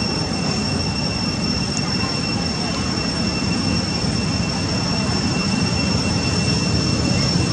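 Steady outdoor background noise: a constant low rushing hiss with a thin, steady high-pitched whine on top, unchanging throughout.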